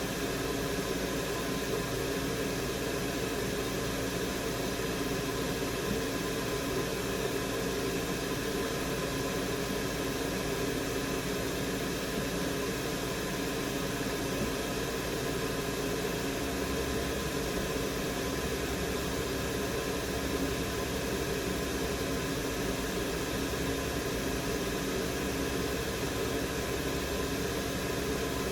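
Steady fan-like whir with a low hum, unchanging throughout.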